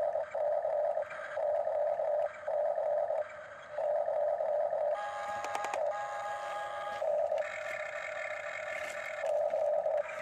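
Small electric gear motors of a Huina remote-control toy excavator whining in short stop-start bursts as the boom and bucket are worked. About halfway through, a steadier whine with a different pitch plays for about two seconds, with a quick run of clicks at its start.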